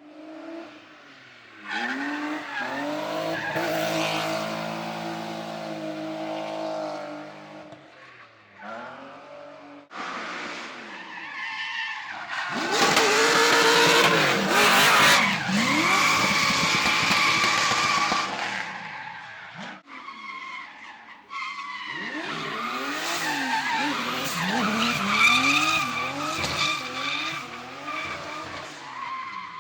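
Drift cars sliding past at high revs, engines revving up and down over screeching tyres, in three separate passes. The loudest is the middle one, with the heaviest tyre screech.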